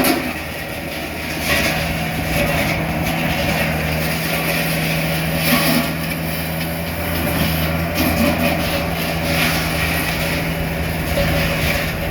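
An engine running at a steady speed, with irregular hissing, rattling surges over it.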